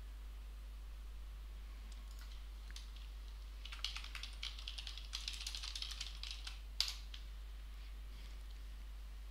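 Typing on a computer keyboard: a few faint clicks, then a quick run of keystrokes for about three seconds, ending with one louder key press.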